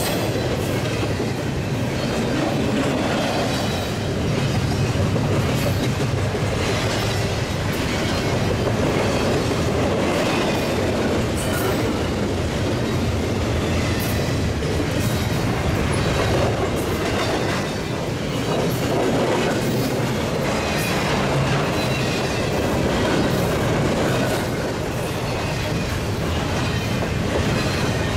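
Freight train cars rolling past steadily, with the wheels clicking over rail joints.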